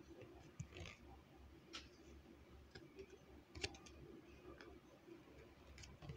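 Faint scattered taps and clicks of stiff tarot cards being handled, set on a small wooden easel and laid on a table, the sharpest tap about three and a half seconds in, over a low steady room hum.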